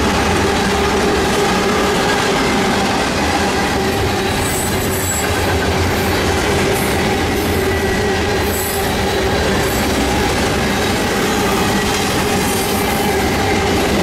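Freight train cars of a mixed manifest (tank cars, covered hoppers, boxcars) rolling past close by: the loud, steady noise of steel wheels running over the rails, with brief high-pitched flares about four and eight seconds in.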